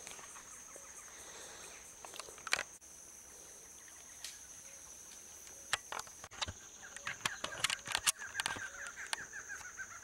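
Steady high-pitched insect drone, broken by scattered sharp clicks and knocks; from about three seconds before the end, a rapid chattering animal call joins in.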